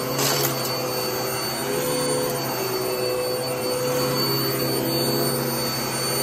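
Sanitaire upright vacuum cleaner running steadily on carpet, a constant motor hum and whine over the rush of suction air. There is a brief rush of noise just after the start.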